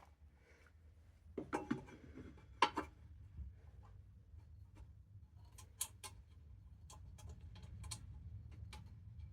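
Irregular light clicks and knocks of hand tools and small parts being handled, the strongest cluster about two seconds in, over a steady low hum.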